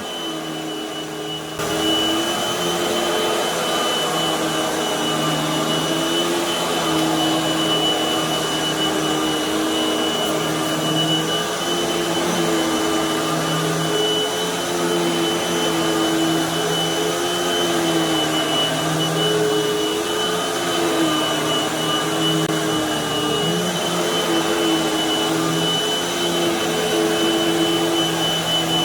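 Hoover High Performance upright vacuum running on carpet with its floor beater spinning: a loud, steady motor hum with a high whine, the hum's pitch wavering up and down. It gets louder about a second and a half in.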